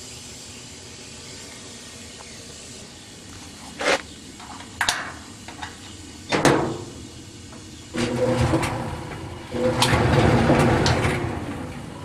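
Handling of a Roper clothes dryer's metal door: a couple of light clicks, then a loud clunk as the door comes open about six seconds in, followed by two longer stretches of rubbing and knocking from the door and cabinet.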